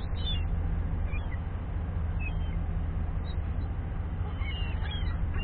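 Gulls giving short, high calls, a few scattered and then several close together near the end, over the steady low hum of an idling vehicle engine.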